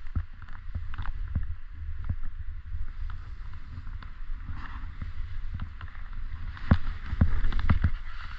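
Wind buffeting a GoPro's microphone while riding downhill on snow, under the repeated hiss and scrape of edges sliding over the snow. A few sharp knocks come from bumps, the loudest ones near the end.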